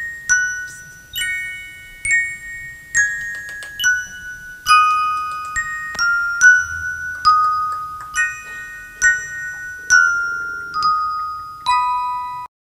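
Background music: a slow melody of single bell-like struck notes, one or two a second, each ringing briefly. It cuts off suddenly near the end.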